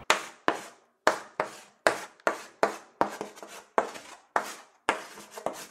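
Chalk scratching on a chalkboard as words are written: a quick run of short, sharp strokes, about two or three a second.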